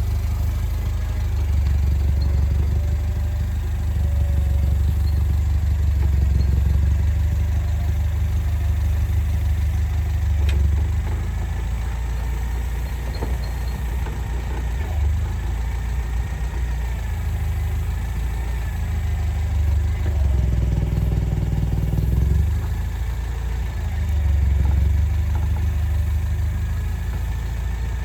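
An engine running near idle, its low drone swelling and easing several times as it is throttled up and down.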